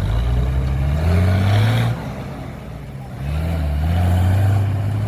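Heavy diesel engine revving up twice, its pitch climbing for a second or two each time, with a drop in between, then running steadily.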